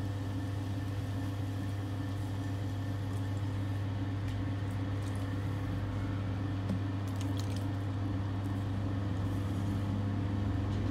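Electric potter's wheel running with a steady low motor hum, with faint squelching of wet stoneware clay under the hands as a cylinder spins.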